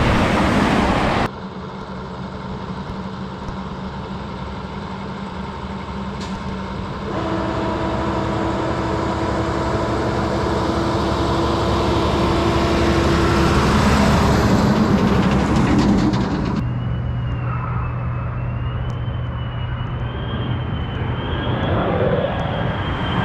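Heavy trucks passing on a highway: the rumble of a lowboy semi going by on gravel cuts off about a second in, then a semi-truck approaches, its engine and tyre noise building to a peak. In the last seconds, traffic noise with a thin, wavering high whine.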